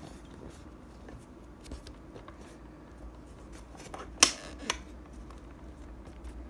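Light handling noises of a camera or phone setup being adjusted by hand, with small scattered ticks and one sharp click a little over four seconds in, followed by a smaller click half a second later.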